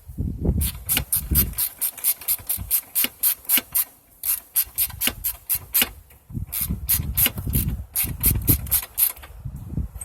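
Socket ratchet wrench clicking in quick runs of about five clicks a second, with short pauses, as it is worked back and forth on a fastener. Rubbing and handling noise from the tool and parts runs underneath.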